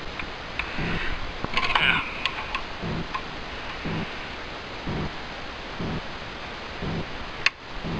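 Clicks and metallic scraping as a steel leaf of a Jaguar E-Type boot spring is pushed by hand out of its mount, with a brief ringing scrape about two seconds in.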